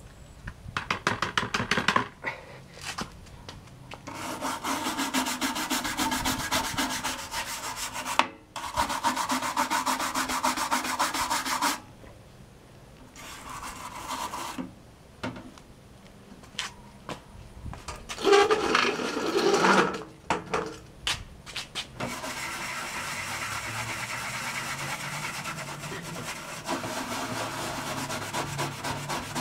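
Fast back-and-forth scrubbing and rubbing on the case of a 1991 Packard Bell Legend 386X computer, cleaning grime off its surface, in several bursts with short pauses between them.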